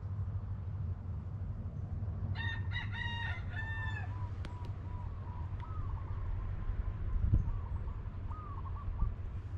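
A rooster crowing once, a cock-a-doodle-doo of several linked notes a little over two seconds in, its last note falling away. Fainter short calls follow, over a steady low rumble.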